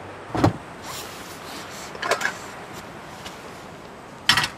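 Three short clatters of camp cookware being handled, the last as a small frying pan is set down on a portable gas camp stove near the end.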